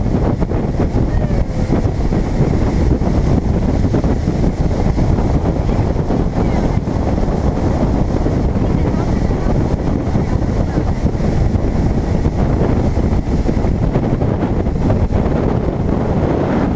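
Nitro bass boat running at speed across a lake: steady wind rumble on the microphone mixed with the motor and the rush of spray along the hull.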